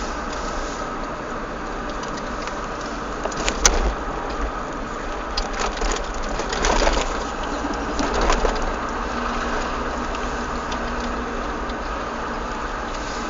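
Peugeot 306 cabriolet 1.6i driving, with steady engine and road rumble. A sharp click comes about four seconds in, and a run of clacks follows a few seconds later: the clacking that appears under acceleration in a straight line.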